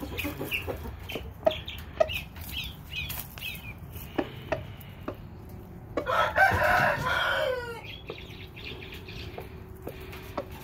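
A rooster crows once, a loud call of just under two seconds, starting about six seconds in and trailing off downward at the end. Before it come short, high clucks and chirps from chickens.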